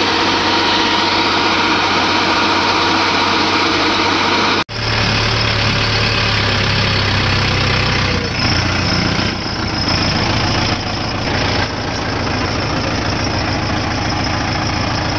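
A Kubota DC-68G combine harvester runs steadily while its unloading auger pours grain into a trailer. About a third of the way in the sound cuts abruptly to a Mahindra Yuvo tractor's diesel engine running close up, heard from the driver's seat.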